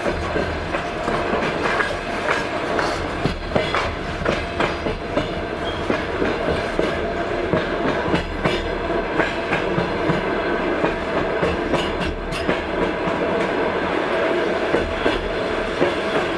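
Passenger train wheels clattering over the rail joints at speed: a steady rumble with repeated sharp clicks and knocks.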